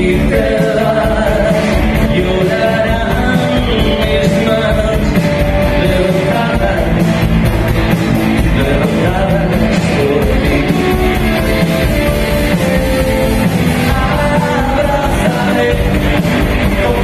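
Live rock band playing loud and steady, with a male singer's voice over drums and guitars.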